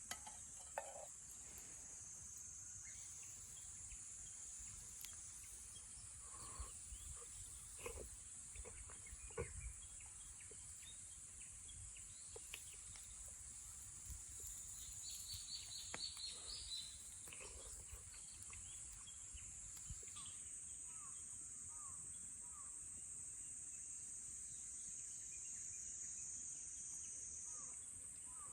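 Steady high-pitched chorus of insects, changing in texture about two-thirds of the way through, with scattered small clicks and knocks and a short rapid trill about halfway.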